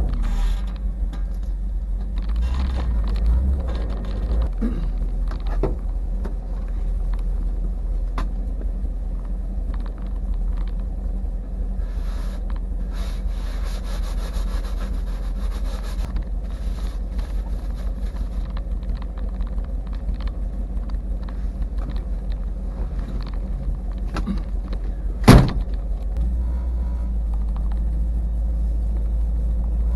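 A car driving on a snowy road, heard from inside: a steady low engine and road rumble, with a stretch of higher hiss midway and one sharp knock near the end.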